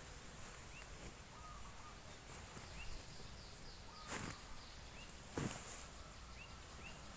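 Small birds calling: short rising chirps every second or two, with a few brief whistled notes, over a faint high insect hiss. Two louder thumps with rustling, about four and five and a half seconds in, from a pile of cut leafy fodder being handled.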